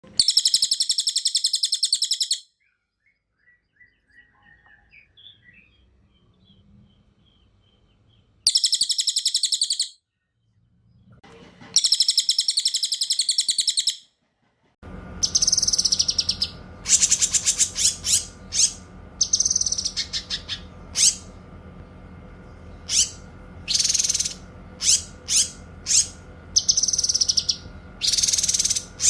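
Cililin and cucak kinoy songbirds singing in loud, very high, rapid rolling trills. Each trill lasts about two seconds, with faint chirps between them. About halfway through, the song turns into a busy run of short sharp chirps and trills over a steady background hum.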